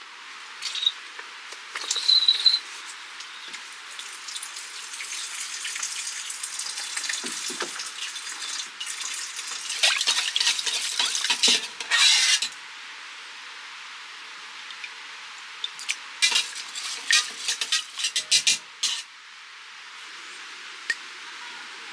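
Rice being washed by hand in a stainless steel pot: water swishing and grains rubbing, loudest about ten seconds in. A scatter of quick clicks and taps follows near the end.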